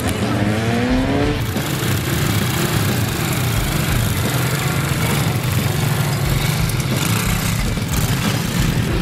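Off-road mud vehicle's engine revving: its pitch rises over about the first second and a half, then it runs hard and steady at high revs for the rest of the time.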